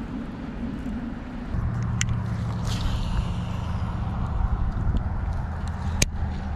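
Low, steady hum of a vehicle engine that sets in about a second and a half in, with two sharp clicks about two and six seconds in.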